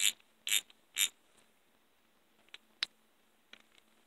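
Shop rag rubbing over a Craftsman half-inch-drive ratchet: three quick wiping strokes about half a second apart in the first second. Then a few faint ticks and one sharp click a little before three seconds in.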